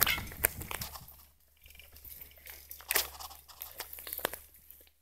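Irregular crackling, rustling and clicks right on a phone's microphone, as the phone is handled or rubs against clothing while moving, with a quieter stretch about a second and a half in.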